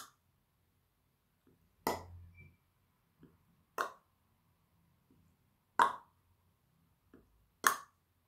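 Hollow mouth pops made by a woman with her mouth open in an O shape, a sharp pop about every two seconds, five in all, with a couple of fainter clicks between them.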